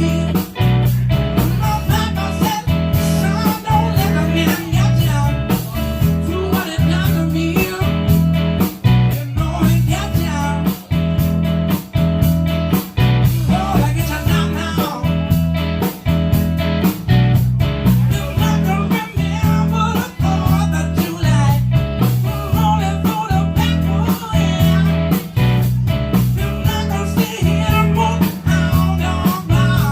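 Live blues-rock band music with electric guitar, bass and a singing voice, played with a steady beat.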